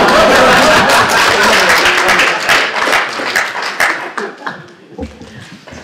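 Audience clapping, loud at first and dying away over about four seconds, with voices mixed in.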